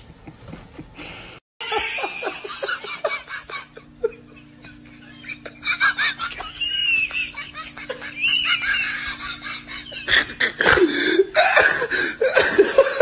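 Laughter in short rapid bursts, louder in the last few seconds, over a low steady hum.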